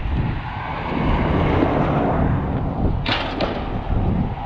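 Steady outdoor rumble of wind and traffic noise, with a couple of sharp clinks of scrap metal about three seconds in.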